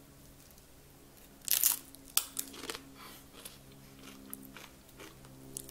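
A bite into a thin, crispy tortilla chip scooped with guacamole about a second and a half in, then crunchy chewing with smaller crackles that thin out over the next few seconds.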